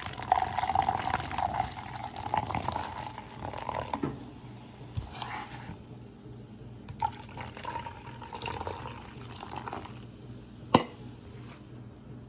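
Soda being poured into a cup, fizzing, in two pours: a longer one at the start whose tone rises a little as the cup fills, and a shorter one later. A single sharp clack near the end.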